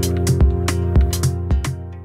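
Background music with a steady beat: evenly spaced drum hits over held instrumental tones.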